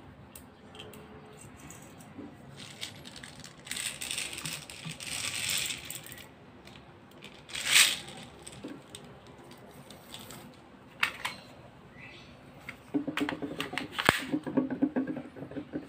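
Plastic airsoft BBs clicking and rattling as they are loaded by hand into a gas pistol's stick magazine, with scattered small clicks and a sharp one about eight seconds in. Near the end comes a quick run of clicks with one loud snap as the magazine is pushed into the pistol grip.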